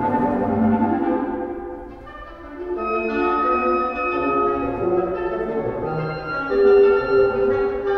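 Instrumental music with held, layered notes. It thins out and dips about two seconds in, then picks up again with higher sustained notes.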